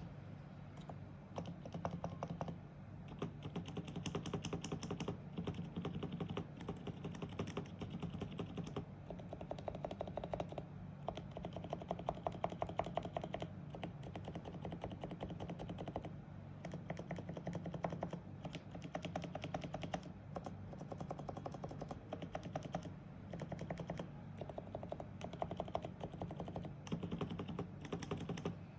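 Typing on a lubed Realforce PFU keyboard with Topre electrostatic capacitive switches and DES sliders: rapid runs of keystrokes with short pauses between bursts.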